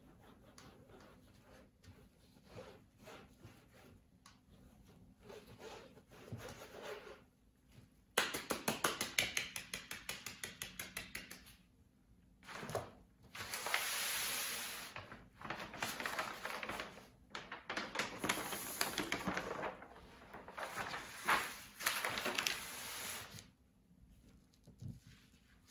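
Gloved hands rubbing dampened black powder through a wire granulating screen, a gritty scraping and rasping that comes in bursts. A run of quick, even strokes, about five a second, comes a third of the way in, followed by several longer, louder spells of scraping.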